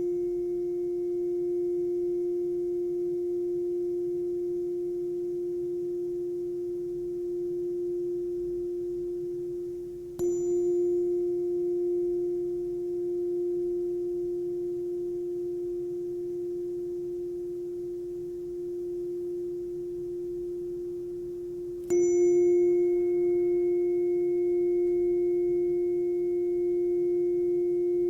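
Healing tuning fork for the bladder ringing with one steady pure tone that slowly fades. It is struck again about ten seconds in and about twenty-two seconds in, each strike a light tap with a brief high ring before the hum settles.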